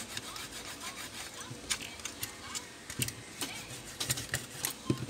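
Rubber eraser rubbed back and forth over a graphics card's gold edge-connector contacts to clean them: soft scratchy rubbing with small clicks and taps.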